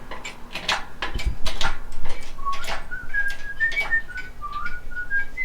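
A person whistling a short tune of stepping notes, starting about halfway through, over scattered sharp clanks and knocks. There is a dull thud about a second in.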